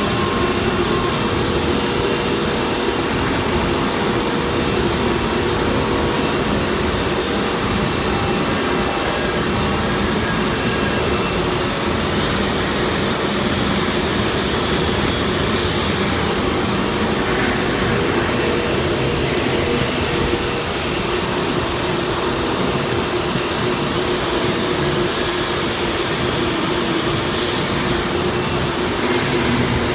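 Busellato Jet 260 CNC machining center running: a steady mechanical hum with a constant tone, broken by a few brief high hisses.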